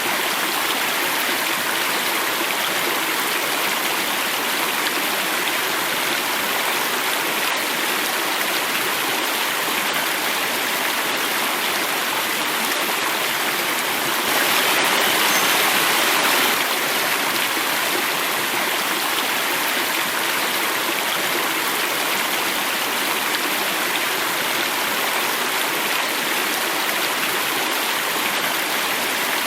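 Water flowing and falling over a small cascade, a steady rushing. It swells louder for about two seconds near the middle.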